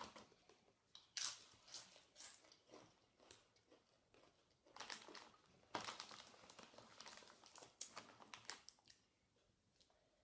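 Doritos Roulette bag crinkling in irregular rustles as a hand rummages through it for chips.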